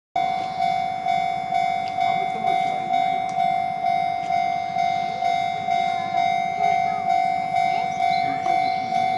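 Japanese railway level-crossing warning alarm ringing steadily, one clear tone struck about twice a second, each strike fading before the next.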